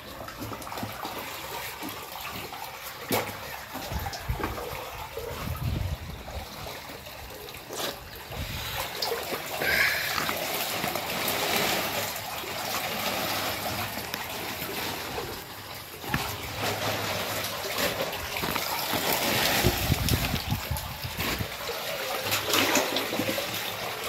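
Sewage water trickling and splashing in a manhole as black sludge is scooped out by hand, with a few sharp knocks.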